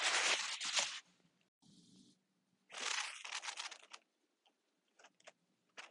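Short bursts of rustling, scraping noise, a loud one at the start and another about three seconds in, with a few faint ticks between them.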